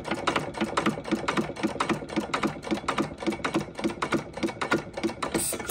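Stover KE 1½ hp hit-and-miss engine coasting on its flywheels between firings: a steady run of light mechanical clicks with a softer beat about three times a second as it turns over without firing.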